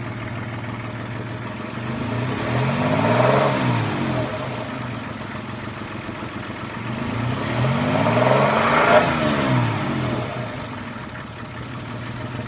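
H20A engine idling and revved twice, each rev rising and falling over about two seconds. The engine has a knock that seems to come from the rear of the engine; the owner has suspected the hydraulic lifters, then the timing chain, and has been told it may be bent connecting rods.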